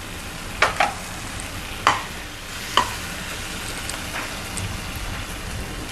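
Chopped onion, peas, capsicum and tomato frying in oil and butter with a steady sizzle. A spoon stirring knocks against the pan about four times in the first three seconds.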